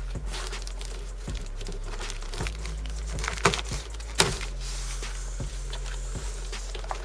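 Crinkling, rustling handling noise with a few sharp clicks, over a steady low hum.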